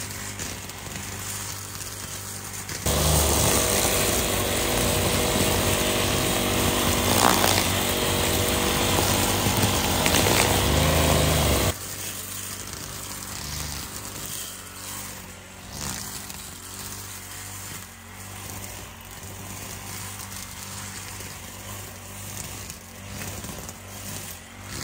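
Petrol brush cutter fitted with nylon trimmer line. About three seconds in its engine jumps to full throttle, holds steady for about nine seconds, then drops abruptly to a lower, quieter running speed.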